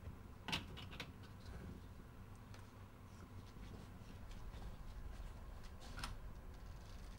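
Quiet room tone with a low hum, broken by a few faint knocks and clicks: a small object set down on a wooden counter about half a second in, another knock a moment later, and a single click near the end.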